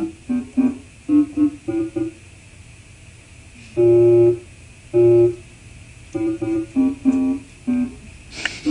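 Portable electronic keyboard picked out by a child one note at a time: a halting string of short notes, a pause of about a second and a half, two longer, louder held notes, then more short notes.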